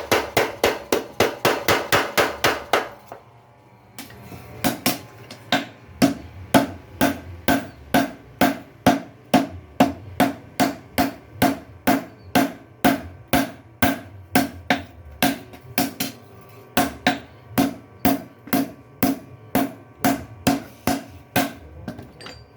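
Blacksmith's mechanical power hammer striking in a fast, even rhythm of about four to five blows a second. It stops briefly about three seconds in, then starts again and keeps pounding steadily.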